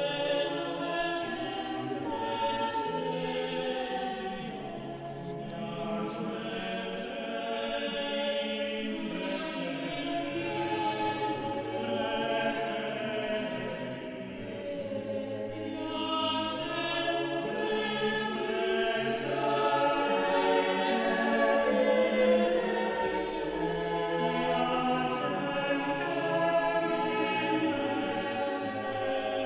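Choral background music: a choir singing long held notes in slowly changing chords.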